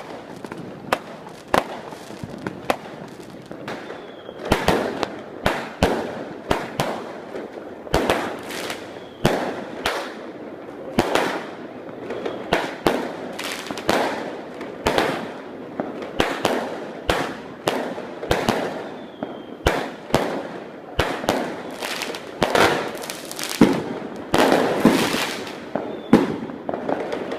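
Fireworks and firecrackers going off without a break: sharp bangs and clusters of crackling, at times several a second, over a constant background of smaller pops.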